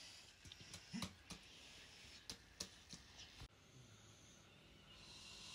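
Near silence: quiet room tone with a few faint, short clicks and soft knocks, most in the first three and a half seconds.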